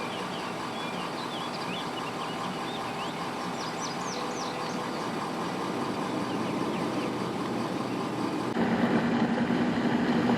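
Small birds chirping in quick, scattered notes over a steady rumbling hiss. About eight and a half seconds in, a louder steady hum starts.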